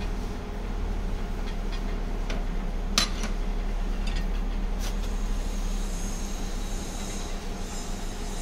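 Steady low mechanical hum with a few sharp metallic clicks from the parts of a manual capsule filling machine being handled, the loudest click about three seconds in. A faint high whine joins the hum in the second half.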